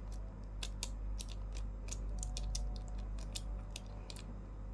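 Ratchet handle with an 8 mm socket clicking irregularly, a few clicks a second, as a bolt on a dropper post is tightened, over a steady low hum.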